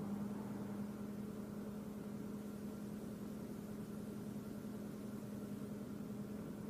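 Vauxhall Zafira A's 1.8 four-cylinder petrol engine idling with a steady hum; the idle is rough, with the engine warning light on and no known cause yet.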